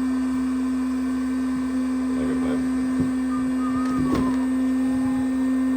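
A small electric motor, like a blower, running steadily with a strong, even hum. Faint knocks come about three and four seconds in.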